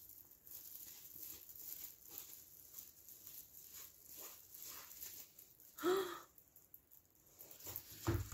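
Faint crinkling and rustling of a diamond-painting canvas's plastic cover film as it is unrolled and handled. About six seconds in there is a short squeaky whine, and near the end soft low thumps as hands press the canvas flat.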